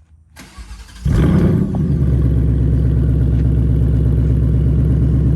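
Stock-exhaust 2021 Ford Mustang Mach 1's 5.0-litre Coyote V8 starting up about a second in, with a brief rev flare, then settling into a steady idle.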